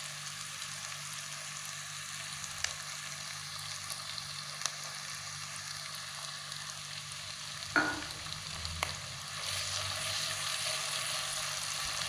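Sliced shallots, garlic and onion sizzling steadily in hot oil in a wok, with a few light clicks. Near the end the sizzle grows louder as a spatula stirs the pan.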